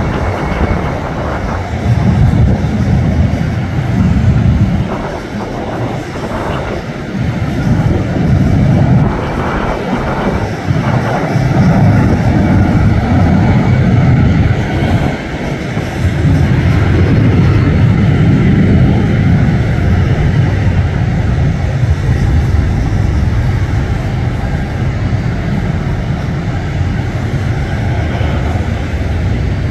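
Jet airliner engine noise: a loud, low rumble that swells and eases over the seconds.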